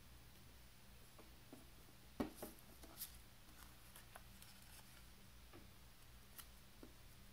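Quiet paper handling on a wooden tabletop: a few soft taps and light paper rustles as the glued paper pieces are pressed and moved. The clearest tap comes about two seconds in. A low steady hum runs underneath.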